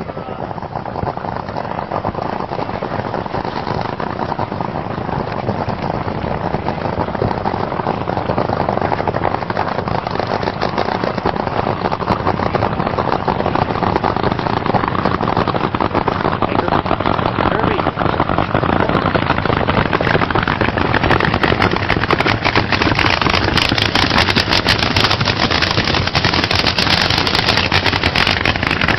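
Drag-racing car engine running rough and crackling, growing louder and slowly rising in pitch, with a sharper, denser crackle over the last several seconds.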